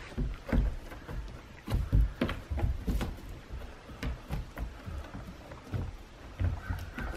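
Irregular thuds, knocks and scuffs of wolfdogs' paws on a plywood doghouse roof as they wrestle and scramble in play.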